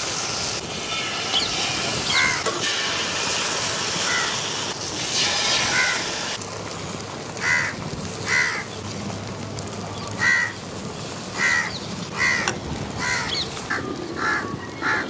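Crows cawing, a dozen or so short harsh caws that come more often in the second half, over the steady sizzle of egg and bread frying in butter on a hot iron griddle; the sizzle drops about six seconds in.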